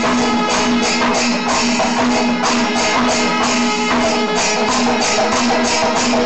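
Panchavadyam, the Kerala temple percussion ensemble, playing: ilathalam hand cymbals clash in a fast, even rhythm of about three strokes a second over drums, with a steady held tone underneath.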